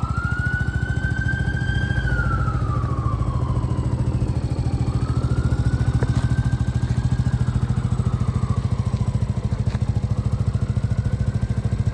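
Benelli Tornado Naked T 125's single-cylinder 125 cc engine running steadily at idle, with a fainter whine that slowly rises and falls in pitch a few times.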